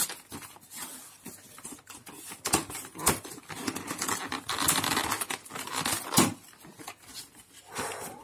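Cardboard trading-card deck box with a clear plastic window being handled, rustling, scraping and crinkling in the hands, with several sharp clicks and taps, the sharpest about 3 and 6 seconds in.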